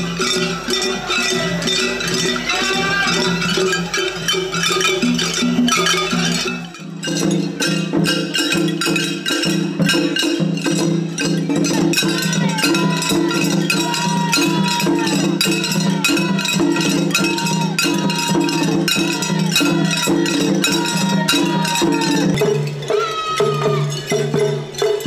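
Mishima shagiri festival music from the floats, led by a fast, unbroken clanging of small hand cymbals. The sound changes abruptly at about seven seconds and again near the end, where it cuts to another group playing.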